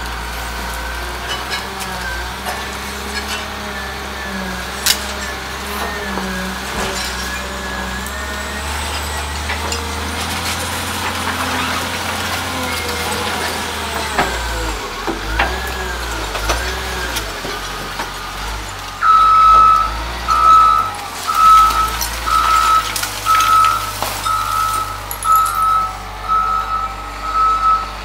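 Caterpillar 950H wheel loader's diesel engine working under load as the bucket is pushed into and lifted out of a rubble pile, with a whine that rises and falls in pitch. About two-thirds of the way through, its reversing alarm starts beeping steadily, about one and a half beeps a second, as the loader backs away with the full bucket.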